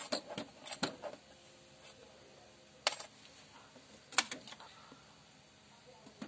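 Small metal tools and a phone being set down on a hard plastic surface: a handful of light clicks and taps in the first second, a sharper click about three seconds in and another about a second later.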